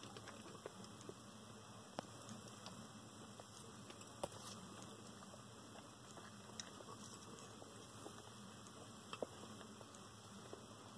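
Low steady hum and hiss with scattered faint clicks and scratches from land hermit crabs' legs and shells moving on the shell dish and substrate, a few sharper clicks standing out.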